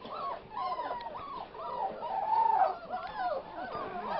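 A litter of five-week-old puppies whining together, many overlapping high cries that rise and fall without a break.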